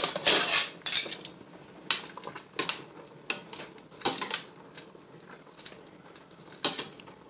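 Metal tongs clinking and scraping against a metal saucepan while stirring boiling spaghetti: a string of sharp, irregular clacks.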